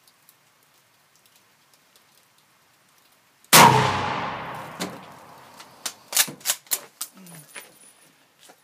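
A single shot from a Chinese Mosin-Nagant bolt-action rifle (7.62×54mmR), about three and a half seconds in, loud, with a long echoing decay. A series of sharp metallic clacks follows as the bolt is worked to clear the spent case.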